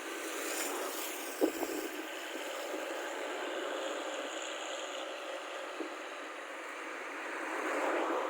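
Rice combine harvester's engine running steadily, with a sharp knock about a second and a half in and a swell in level near the end.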